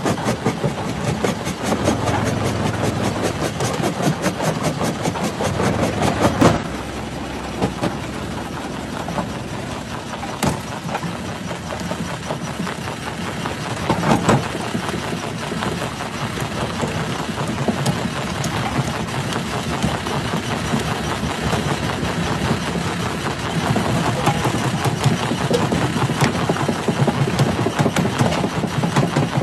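Rock crusher running with a steady mechanical drone and dense, fast rattling as stones are crushed, with a few louder sharp cracks about six, ten and fourteen seconds in.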